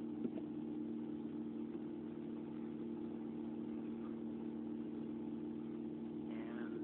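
Steady low hum with a faint hiss behind it, unchanging throughout, with no distinct event: background machine or room noise.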